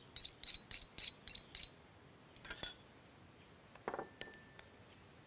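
Metal spoon clinking against a small ceramic bowl while a sauce mixture is stirred: a quick run of about seven light, ringing clinks, then two more about two and a half seconds in. Near four seconds a duller knock with a short ring.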